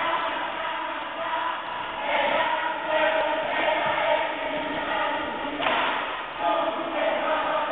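A group of voices chanting together in unison, in phrases with short breaks between them.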